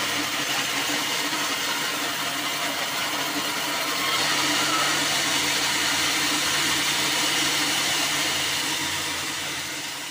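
Band sawmill running, its motor and band blade giving a steady whir. It gets louder and brighter about four seconds in as the cut through the black acacia slab finishes, then fades near the end.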